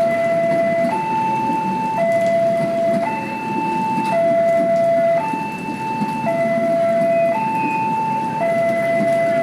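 Railway level-crossing warning alarm sounding a two-tone high–low signal, switching between a lower and a higher tone about once a second. Beneath it is the low running rumble of the passing train's coaches.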